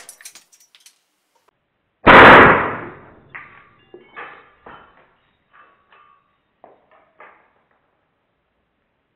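A .177 PCP air rifle shot about two seconds in: a loud sudden crack that dies away over about a second. It is followed by a scatter of small clinks and ticks, some with a slight metallic ring.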